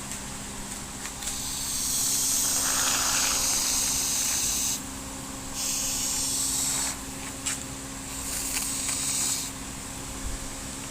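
Can of expanding spray foam hissing in three bursts, the longest about three seconds, as foam is shot into the dash pad's cracks.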